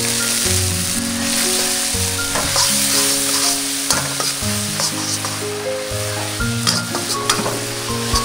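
Garlic and sauce sizzling in hot oil in a steel wok, with a metal spatula scraping and knocking against the pan as it is stirred, the strokes starting a couple of seconds in. Background music plays underneath.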